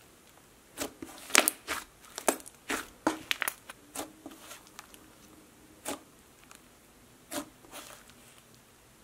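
Soft pink clay slime squished and folded by hand, giving a dozen or so short, sharp sticky pops and crackles, bunched in the first four seconds and sparser after, with quiet gaps between.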